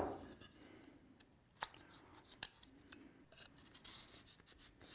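A short scrape or knock at the very start, then quiet handling of wooden joint parts with a few faint clicks and taps as a tenon is pushed into its mortise for a dry fit.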